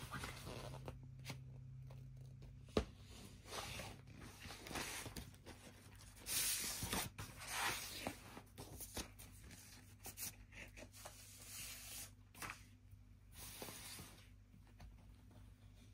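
Large glossy paper booklet rustling and sliding as it is handled, in irregular bursts with a few light taps.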